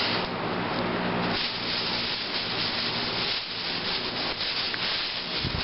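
Thin plastic grocery bag rustling and rubbing right against the camera's microphone while the camera is handled, a continuous loud crinkling friction noise.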